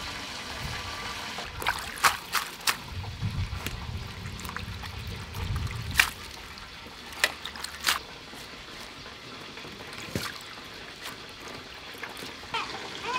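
Lettuce leaves being rinsed by hand in a metal basin of water: water trickling and dripping off the lifted leaves, with a few sharp splashes.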